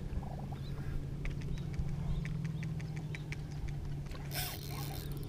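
Steady low hum of a boat's motor, with faint, evenly spaced ticking from a spinning reel as it is wound; a brief rush of noise comes near the end.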